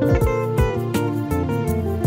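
Background music led by plucked guitar, with a steady beat.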